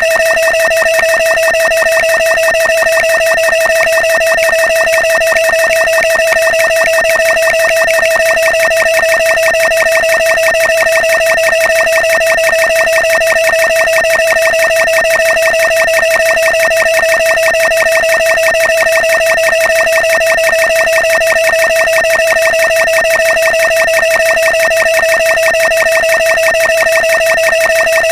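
A rapidly repeated electronic sound effect whose repeats run together into one steady, loud buzzing tone that holds the same pitch throughout.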